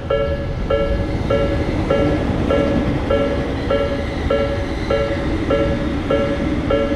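Japanese railroad crossing warning bell ringing its repeated two-tone 'kan-kan' chime, about twelve strikes evenly spaced roughly 0.6 s apart, over a steady low rumble.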